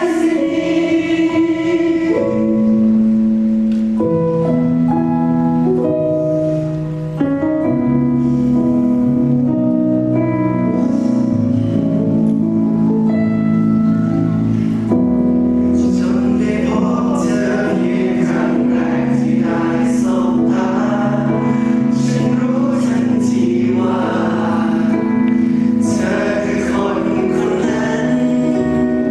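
Live pop ballad performance: several voices sing long held notes over a band. The accompaniment grows fuller, with drum and cymbal hits, about halfway through.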